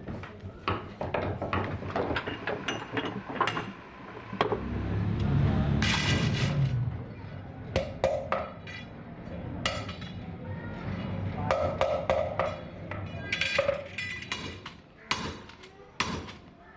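Workshop sounds of hand work on metal parts: a run of irregular clicks, knocks and clinks, with a low rumble for about two seconds starting around four and a half seconds in.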